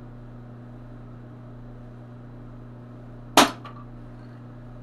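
A small green capacitor, overloaded with too much voltage, bursts with a single sharp bang about three and a half seconds in, over a steady low hum.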